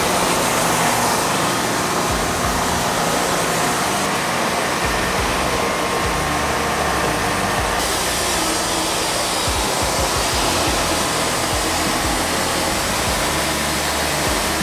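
Wood-Mizer LT40 Wide band sawmill running, its engine-driven band blade cutting lengthwise through a monkey pod log with a steady, even noise.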